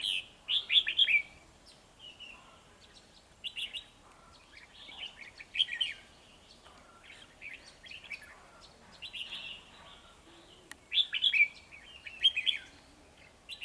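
Red-whiskered bulbuls singing short, rapid warbled phrases every few seconds, the loudest at the start and again about eleven seconds in: males challenging a decoy bird with fighting song.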